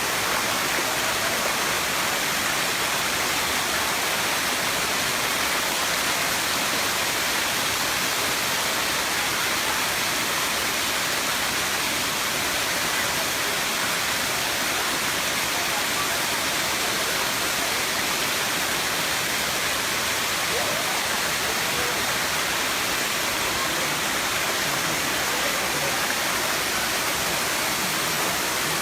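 Erawan Waterfall's cascades: a steady, even rush of falling water.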